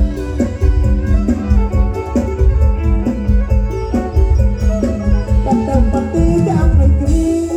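Loud amplified folk dance music: a melody line with held notes over a heavy, steady drum and bass beat.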